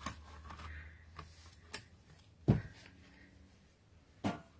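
Die-cutting machine cutting plates being handled and set down: a few light taps and clicks, a loud knock about two and a half seconds in, and another knock near the end.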